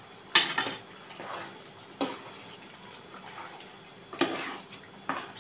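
A metal spoon stirring chicken pieces in thick curry gravy in a metal pot: wet sloshing and scraping in four short strokes, the first loudest.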